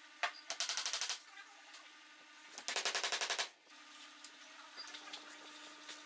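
Claw hammer striking nails into pallet-wood boards: two quick runs of sharp blows, the first about half a second in and the second near the middle, over a faint steady hum.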